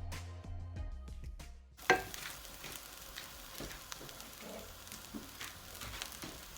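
Background music for the first couple of seconds, then a sudden cut to basmati rice sizzling in hot olive oil in a pan, a steady frying hiss with scattered light clicks of stirring.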